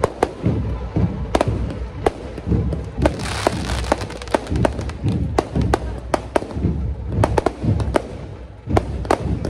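Firecrackers going off in rapid, irregular bangs over loud music with a heavy bass beat. A brief rushing hiss comes about three seconds in.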